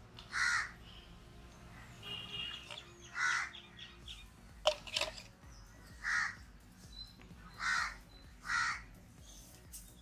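A crow cawing, about five short caws a few seconds apart, with two sharp clicks around the middle.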